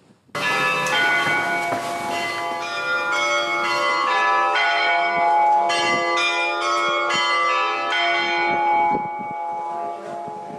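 Orthodox monastery church bells ringing a quick peal of many overlapping strokes from several bells. The striking stops about nine seconds in and the bells ring on, fading.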